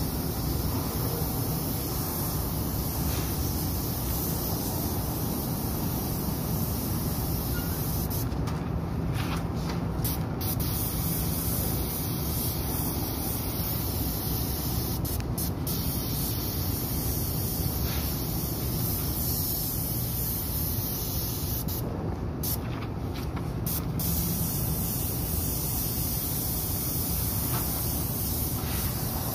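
Paint spray gun spraying: a steady, unbroken hiss over a low steady hum.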